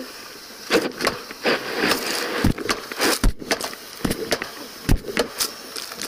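Irregular thuds and clanks of boots stepping across corrugated metal roofing sheets, a heavy step landing roughly every second.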